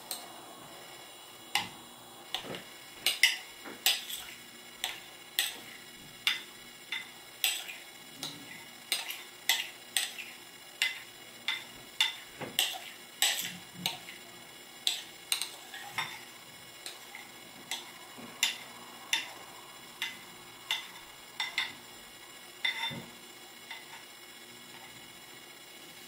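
A spoon clicking and scraping against a glass bowl, sharp taps coming about one to two a second, as thick whipped coffee foam is scraped out of it.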